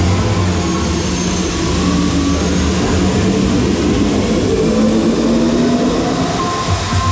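Sci-fi show soundtrack played over the tunnel's speakers for a hyperspace-travel scene: a loud, steady low drone with a rushing noise, with held synth tones coming in near the end.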